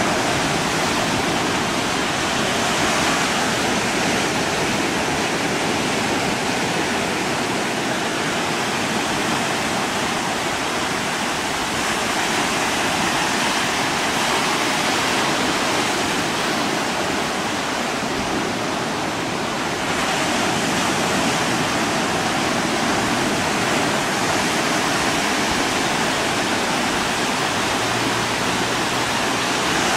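A steady, unbroken rushing noise with no distinct events, and a faint steady hum beneath it.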